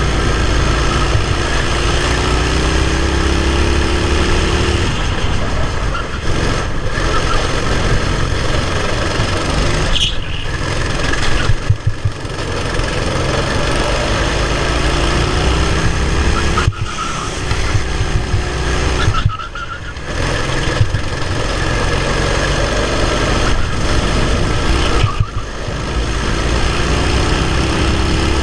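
Racing kart engine running hard, heard from onboard. Its pitch climbs along the straights and drops briefly about five times as the driver lifts off for corners.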